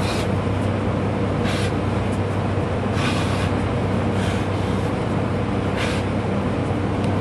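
Steady drone of large gym fans, with a short hissing breath about every second and a half in time with dumbbell shoulder raises.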